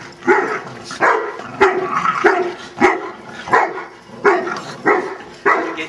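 Dog barking over and over while playing with another dog over a toy: about nine sharp barks, evenly spaced at roughly one every two-thirds of a second.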